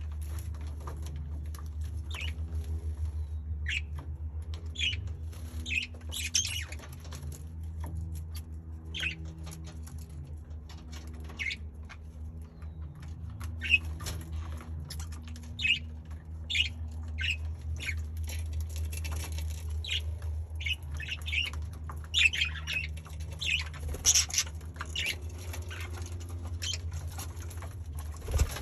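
Budgerigars chirping and squawking in short, scattered calls, with bursts of wing flapping as they bathe, over a steady low hum.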